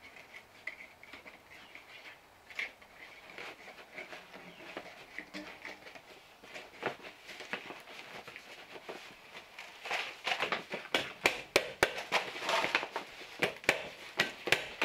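Faint rustling as waterproofing building paper is pressed flat by gloved hands. From about ten seconds in, a quick, irregular run of sharp hammer taps follows as the paper is fastened to the wall framing.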